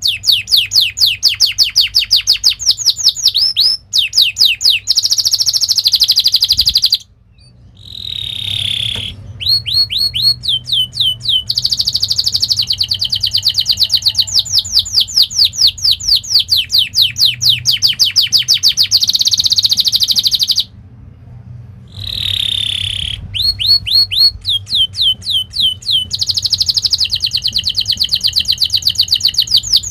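Domestic canary singing fast, rolling song: rapid runs of clear notes that slide downward, alternating with long buzzy trills. It breaks off briefly twice, about 7 and 21 seconds in.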